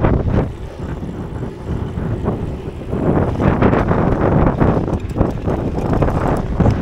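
Wind buffeting the microphone of a camera on a moving bicycle: a gusting rumble that gets louder about three seconds in.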